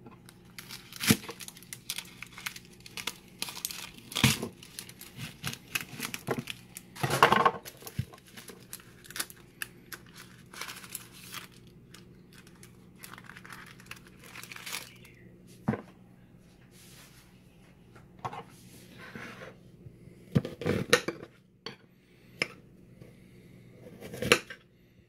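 A kitchen knife cutting onions on a ceramic plate used as a cutting board: scattered sharp clicks and knocks as the blade strikes the plate, with the dry crinkle and tearing of onion skin being peeled off partway through.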